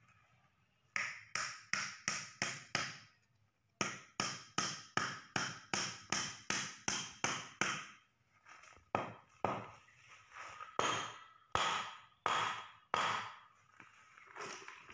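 A wooden block being chopped and trimmed by hand, sharp chopping strikes into the wood. Two quick, even runs of about three strikes a second, with a short pause between them about a second into the chopping, then slower, uneven strikes.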